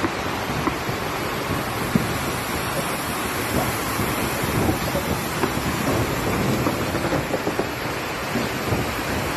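Steady rushing noise of wind buffeting a phone microphone, with small scattered crackles.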